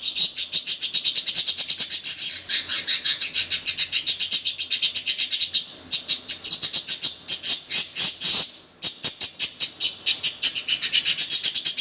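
Budgerigar giving a rapid, steady run of sharp chirps, with brief pauses about six and nine seconds in; the bird is agitated, which the owner takes for anger.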